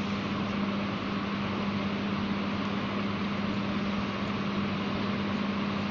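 Electric fan running: a steady airy whoosh with a steady low hum.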